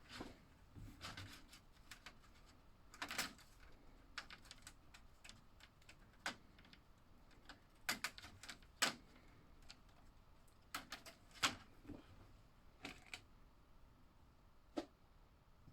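Plastic slot car track guard railings being clipped onto and handled against the track pieces: scattered, irregular light plastic clicks and clacks.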